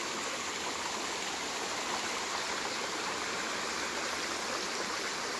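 Shallow creek running over and between boulders: a steady, even rush of water.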